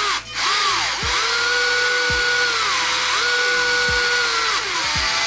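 Small electric drive motors of a combat robot whining as they are run from the transmitter: the pitch rises, holds for about a second, and falls away, several times over.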